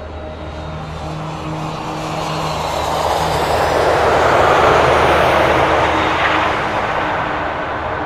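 Twin-engine jet airliner at takeoff thrust, rolling past and lifting off. The engine roar swells to a peak about halfway through, then fades.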